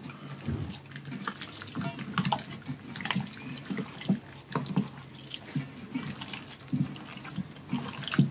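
Hands squeezing and kneading pieces of pork belly in a wet char siu marinade in a bowl: irregular squelches and slaps.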